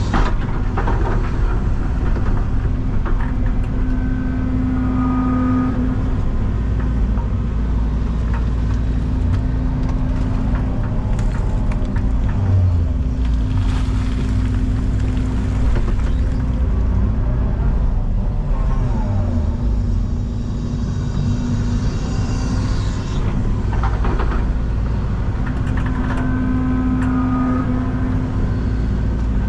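Excavator's diesel engine running steadily under load, its pitch dipping and rising a few times as the hydraulics work, with a thin high whine coming and going.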